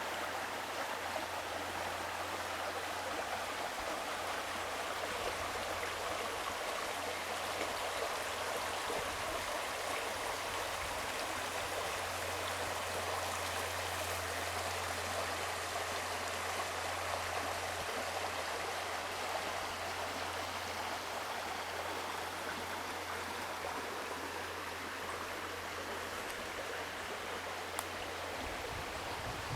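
Running water of a stream, a steady rushing with no break.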